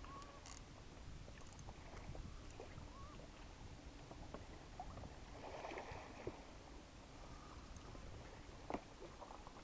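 Faint water lapping against a small inflatable boat at sea, with a few scattered faint clicks and knocks.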